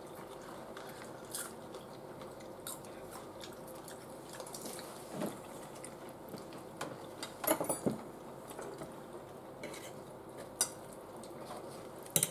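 Metal forks tapping and scraping on a metal baking tray as nachos are picked up, in scattered clinks with a louder cluster about seven and a half seconds in, with chewing in between.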